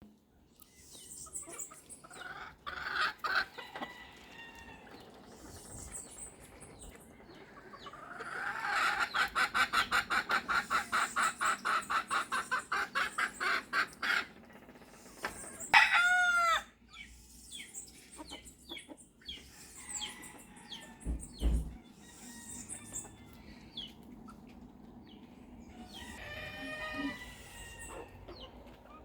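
Roosters crowing and chickens clucking among other birds' calls. A fast run of repeated notes, about five a second, lasts several seconds around the middle.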